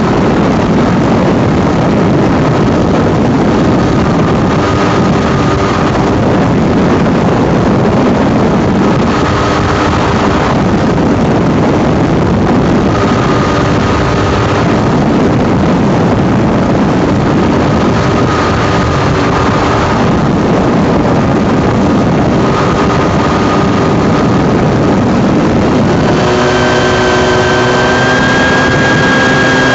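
Open-cockpit ultralight aircraft in flight: its engine running under heavy wind rushing over the microphone. Near the end the engine note turns steady and more distinct.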